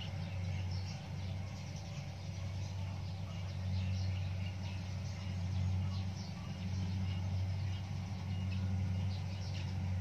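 Steady low drone of a rice combine harvester's engine working the field, with short high chirps of birds scattered over it.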